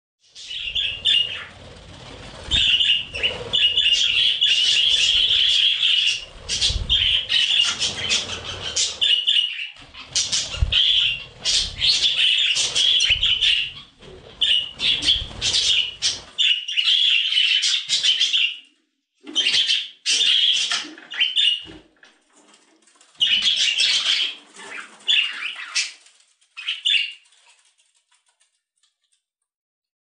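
A flock of budgerigars chirping and chattering in bouts broken by short pauses; the calls thin out in the second half and stop near the end.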